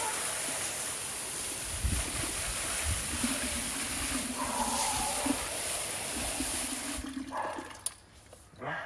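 Water spraying from a garden hose nozzle onto concrete paving, a steady hiss and splatter that cuts off about seven seconds in as the spray is shut off.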